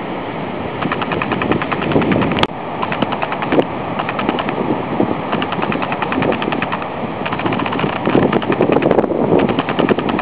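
Wind buffeting the microphone in gusts. Over it come runs of rapid, even chirring clicks, many a second, lasting a second or two each with short breaks between.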